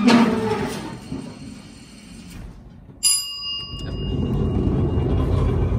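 A sharp metallic clang about halfway through, ringing for about a second, as a loaded pallet is worked onto a box truck's metal liftgate, followed by a low rolling rumble.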